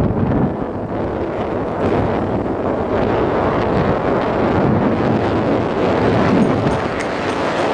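Wind rushing and buffeting over the microphone of a moving motorcycle, mixed with engine and road noise in a steady, loud rumble.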